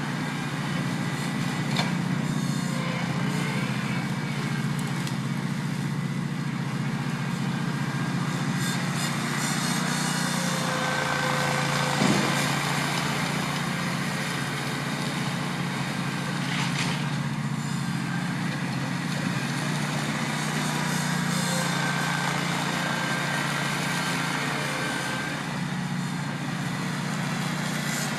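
Ventrac 4500K compact tractor's air-cooled 31 hp gas engine running steadily under load while its front mower cuts through tall grass and brush, with a single sharp knock about twelve seconds in.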